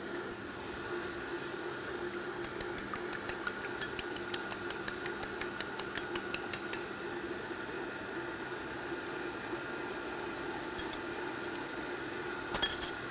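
Electric stand mixer with a paddle attachment running steadily at medium speed, beating egg into creamed butter and sugar. Over it, a quick run of light clicks as a utensil beats egg in a small bowl for a few seconds, and a brief clink near the end.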